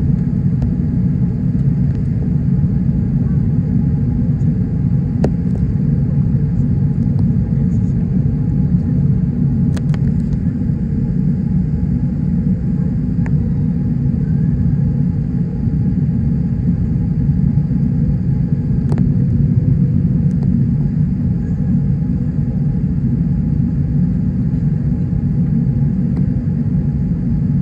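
Cabin noise inside a Qantas Airbus A380 climbing after takeoff: the Rolls-Royce Trent 900 engines and rushing air make a loud, steady rumble, with a few faint clicks.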